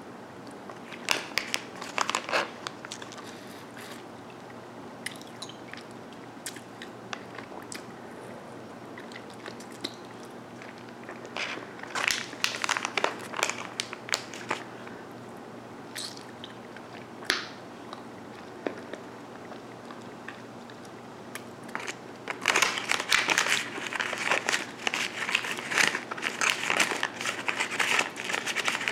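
Close-miked mouth sounds of a sour-sugar-coated hard-candy lollipop being licked and sucked, with scattered sharp clicks, then about two-thirds of the way in a dense stretch of crunching as the hard candy is bitten and chewed.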